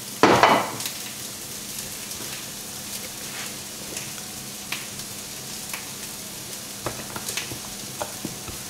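Chorizo, onions and garlic sizzling steadily in a frying pan, with scattered small crackles, and one short louder noise about half a second in.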